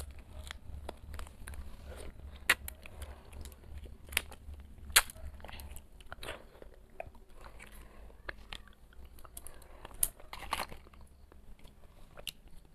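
A person chewing jelly, with scattered sharp clicks and snaps from small plastic jelly cups being handled and peeled open.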